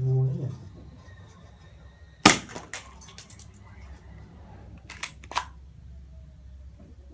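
Airsoft Colt 45 pistol fired once: a sharp crack about two seconds in, followed by a few lighter clicks. Two smaller clicks come about five seconds in, and a brief low hum sounds at the very start.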